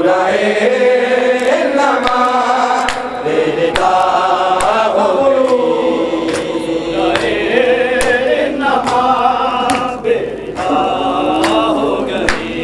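Men's voices chanting a noha, a Shia mourning lament, as a group, the long sung lines held and bending in pitch. Sharp hand slaps of chest-beating matam from the mourners come through irregularly.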